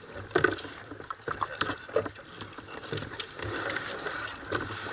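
Irregular knocks, slaps and scrapes as a large skate is hauled onto a plastic sit-on-top kayak, with water splashing against the hull. A rougher rush of water and wind comes in over the last second or so.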